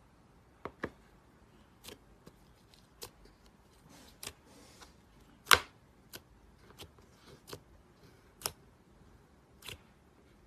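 Thick glossy slime pressed and poked by fingers in a plastic tub, giving about a dozen scattered sharp clicks and pops. The loudest comes about five and a half seconds in.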